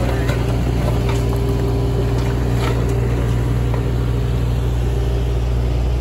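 Kubota U27-4 mini excavator's diesel engine running steadily, with a few faint knocks over it.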